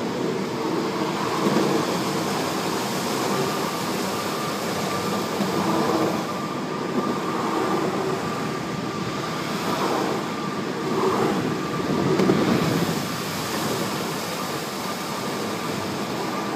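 Longboard wheels rolling over a concrete parking-garage floor: a steady rolling rumble that swells a little now and then, with a faint high steady whine running through it.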